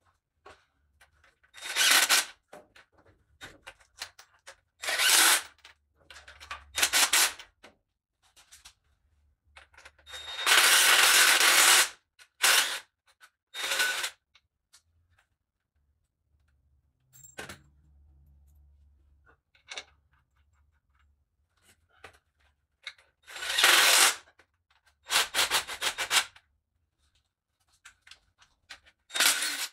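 Cordless impact driver hammering in about ten short bursts, the longest about a second and a half, as bolts are run into a transmission bell housing.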